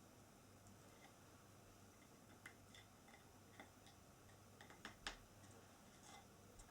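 Near silence broken by a few faint, scattered wooden clicks and taps: wooden dowels being pushed into the pre-drilled holes of a flat-pack chair part.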